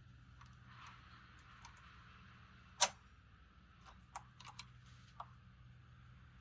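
A single sharp click about three seconds in, then a few lighter clicks and taps, over a low steady hum.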